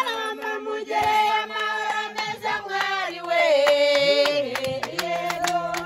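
Music with singing: voices holding long notes and sliding between them, over sharp percussive taps.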